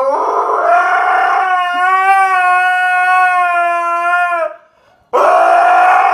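Dog howling: one long howl that rises at the start and then holds for about four seconds, and a second howl begins about five seconds in.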